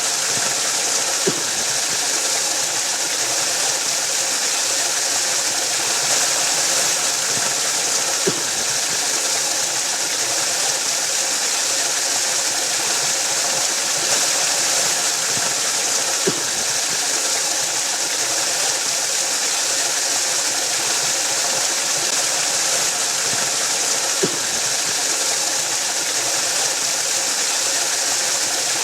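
Waterfall sound, a steady hissing rush of falling water with no change in level. A faint brief click recurs about every eight seconds.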